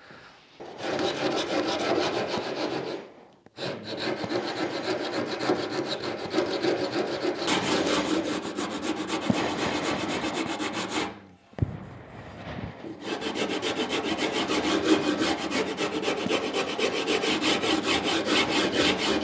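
Japanese saw rasp filing the curved edge of a sapele board in quick, repeated back-and-forth strokes, with two short pauses and a single knock in the middle pause.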